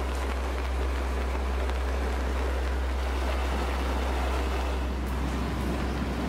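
Mountain stream rushing over rocks in a boulder-strewn valley bed: a steady, deep rush of water.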